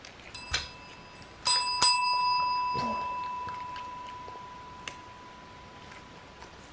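Chrome desk service bell tapped by a puppy's paw: a light ding about half a second in, then two sharp dings in quick succession about a second and a half in, the single-pitched ring fading away slowly over the next few seconds.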